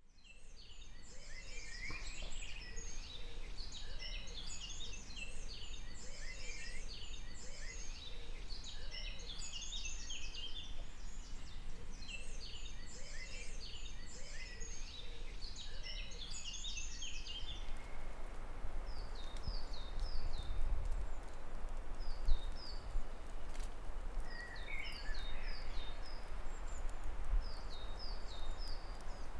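Dense chorus of several songbirds singing over one another in a mountain forest. About 17 seconds in it gives way to a steady rushing hiss with a single bird repeating short, falling notes in brief phrases.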